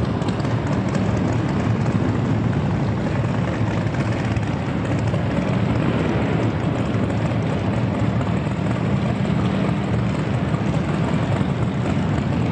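Motorcycle engines running steadily as the bikes ride slowly across a large exhibition hall, the sound echoing off the hall.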